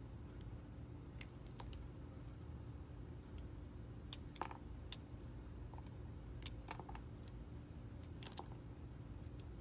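Snap-off utility knife blade cutting thin slices from a bar of clear soap, giving scattered, irregular crisp clicks and snaps.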